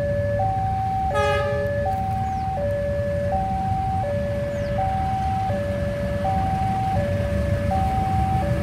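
Railway level-crossing warning alarm sounding for an approaching train: two electronic tones take turns, one note about every 0.7 s, over a steady low rumble of traffic. A short horn toot cuts in about a second in.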